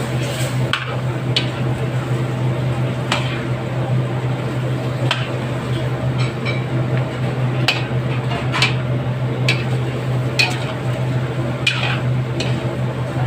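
Metal spatula scraping and clinking against a stainless steel wok while sauce-coated chicken pieces are stirred, in irregular strokes about once a second, over a steady low hum.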